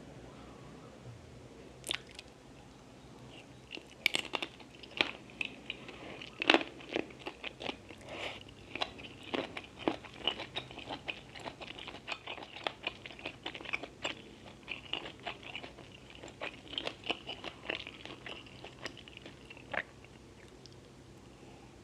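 Close-miked eating: biting and chewing with many sharp crunches, one near two seconds in, then a dense run from about four seconds in until near the end.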